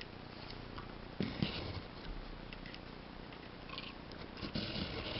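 Puppy gnawing and crunching a raw carrot, with short bursts of crunching about a second in and again near the end, and small scattered clicks between.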